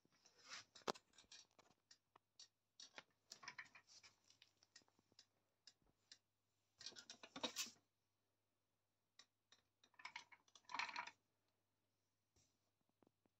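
Faint scratchy rustling and clicks in about four short bursts, a few seconds apart: a cat scuffling on the fabric seat of a swivel office chair and against a pillow as the chair is turned.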